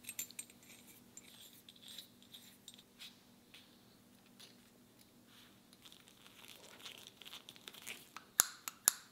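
Small steel pivot screws being handled and fitted into metal surface gauge parts: scattered light metallic clicks and scraping, growing busier, with a few sharper clicks near the end.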